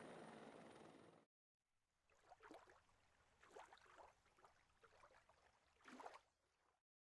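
Near silence: a faint steady hiss cuts out about a second in, then faint scattered short sounds.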